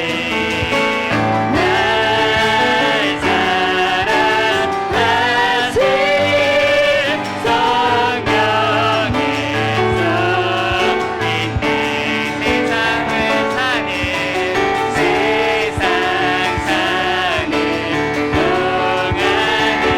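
Praise team singing a worship song with piano accompaniment: the voices carry a sustained, flowing melody over steady piano chords.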